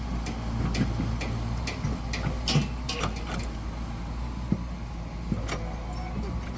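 Heavy construction machine engine running steadily, with irregular sharp clanks and knocks over it.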